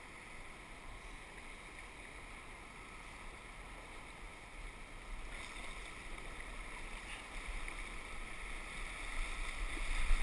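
Rushing white water of a small river rapid around a kayak, growing louder from about halfway through as the kayak moves into the rough water.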